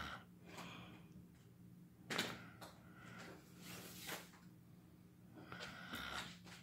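A man snoring, with noisy snorting breaths about every one and a half to two seconds; the sharpest snort comes about two seconds in.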